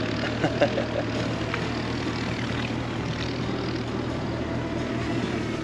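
A motor running steadily, an even low hum.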